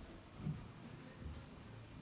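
Faint hand-on-head massage sounds: hands working over the scalp and hair, with a soft low thump about half a second in.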